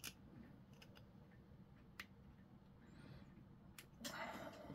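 Near silence with a few faint clicks of small plastic model-kit parts being handled between the fingers, and a soft rustle of handling near the end.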